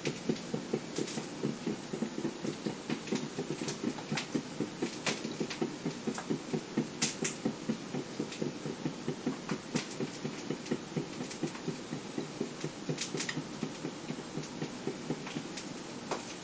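Krups XP1500 drip coffee maker gurgling and sputtering in fast uneven pulses, about five a second, as its heater pushes the last hot water through near the end of the brew; the gurgling eases off near the end. Sharp crackling pops from a heating frying pan come over it now and then.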